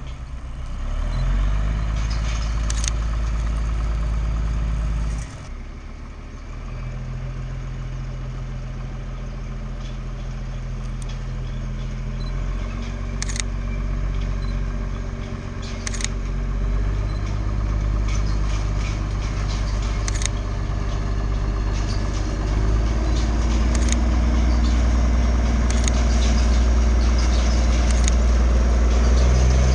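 Narrow-gauge diesel locomotive engine running under load, a low drone that drops sharply about five seconds in, then steps up in pitch a couple of times and grows louder as the train approaches. A few sharp clicks from the wheels and track are scattered through it.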